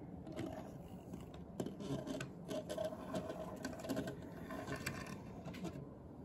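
Handling noise: irregular light clicks, taps and scrapes, thickest in the middle stretch.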